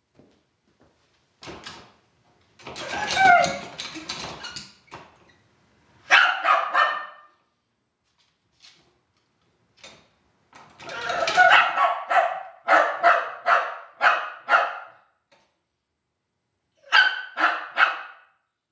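Dog barking from inside a plastic travel crate in repeated bursts: a run of barks about every half second through the middle, then three quick barks near the end.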